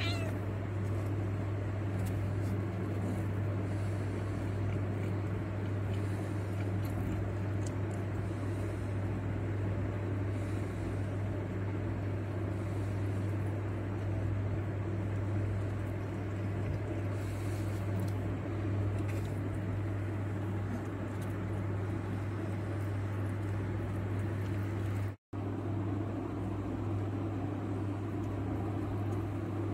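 A steady low hum, with faint small clicks of a cat chewing raw meat scattered over it. The sound cuts out completely for a split second about 25 seconds in.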